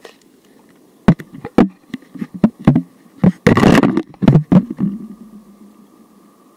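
A quick run of about a dozen sharp, loud knocks and bumps, with a short scraping rustle in the middle, over a quiet steady background hiss.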